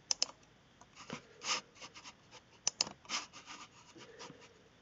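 Faint sharp clicks from computer controls at a desk, a quick pair just after the start and another pair near the middle, with soft scraping and rustling between them.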